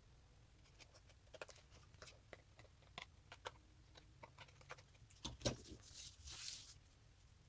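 Paper card being trimmed and handled: faint scattered ticks and clicks, a sharper tap about five and a half seconds in, then a short scraping swish.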